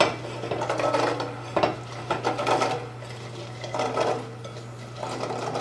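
Fresh cranberries dropped by the handful into a stainless steel saucepan of sugar water, giving scattered light knocks and splashes against the pot. A steady low hum runs underneath.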